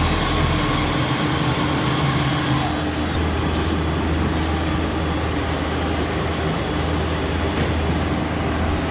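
CNC router cutting, its spindle and the shop's dust collector running together as a steady machine noise with a low hum underneath.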